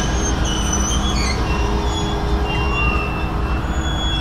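Freight train in a rail yard: a steady low rumble, the drone of diesel locomotives, and thin high-pitched wheel squeals that come and go.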